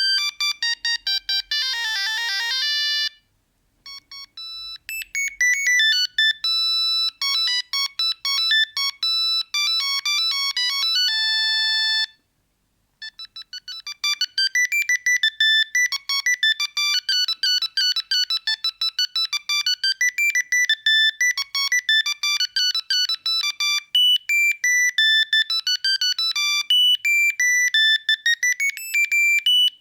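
Siemens C45 mobile phone playing its built-in monophonic ringtones one after another. Each is a beeping electronic melody of single high notes. There are short silent breaks about three seconds in and about twelve seconds in, where one tune ends and the next begins.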